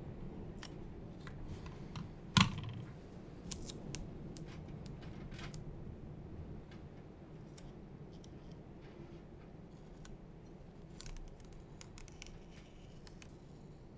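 Small clicks, scratches and rustles of hands working masking tape onto plastic model kit parts, with one sharp tap about two and a half seconds in.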